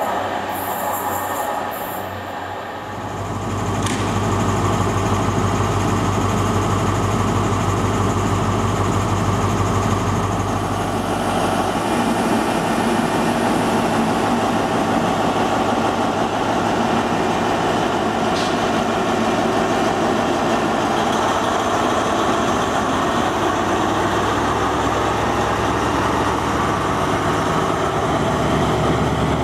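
Diesel train engine running steadily close by, a deep steady hum, with its tone shifting about three seconds in and again about twelve seconds in.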